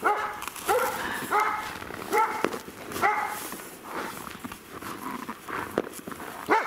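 A dog yapping repeatedly: about five short, sharp yaps in the first three seconds, roughly one every 0.7 s, then fainter ones, and another yap near the end.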